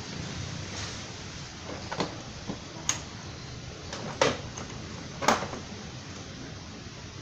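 Plastic front fairing panel of a Kymco Super Z 125 scooter being pressed and fitted into place by hand: a few sharp plastic clicks and knocks, the loudest two about four and five seconds in, over a steady background hiss.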